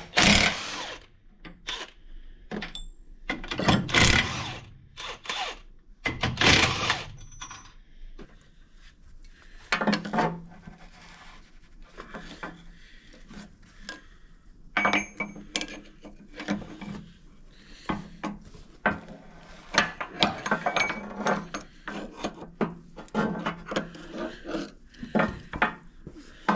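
Cordless impact driver hammering on a bolt in three short bursts, then a socket ratchet clicking in runs of strokes as the bolts holding the bulldozer's cylinder pin retainer are worked loose.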